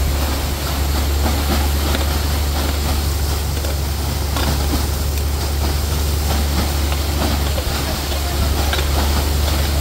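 Borewell drilling rig and its air compressor running steadily with a deep hum, under a loud rushing hiss of compressed air and water blown up out of the bore.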